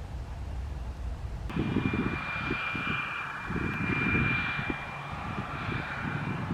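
PZL-130 Orlik turboprop trainers flying, their engines making a steady high whine over an uneven rumble; the sound comes in abruptly about a second and a half in.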